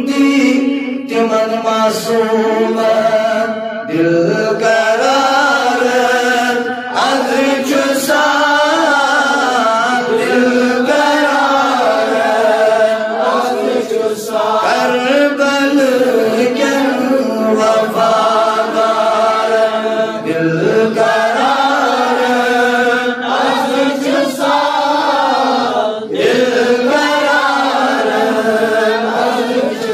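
A man singing a manqabat, an Islamic devotional praise poem, solo, in long held melodic lines that bend and waver in pitch, with short breaks for breath between lines.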